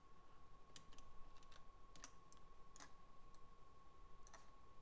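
Near silence with a handful of faint, scattered computer mouse clicks, heard over a faint steady high tone.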